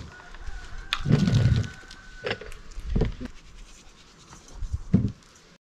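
Small scrapes and knocks of a plastic cutting board and glass bowl being handled on a table, mixed with low gusts of wind on the microphone about a second, three seconds and five seconds in.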